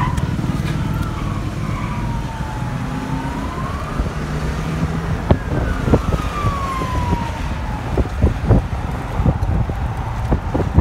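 Police siren wailing in a slow sweep that falls, rises and falls again, heard from inside a moving patrol car over its steady engine and road rumble. A string of short knocks comes in the second half.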